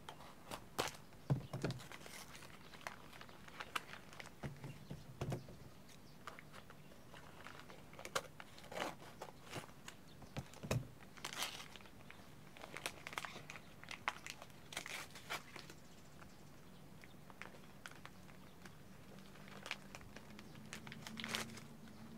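Paper wrapping on a parcel being cut with scissors and torn off by hand: irregular crinkling, rustling and tearing, with a quieter stretch about two-thirds of the way through.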